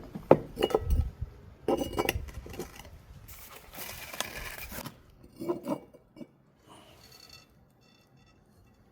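Thick glass knocking and clinking as it is handled and set down on a hard surface, with a short hissing rush about three and a half seconds in and a few faint clicks near the end.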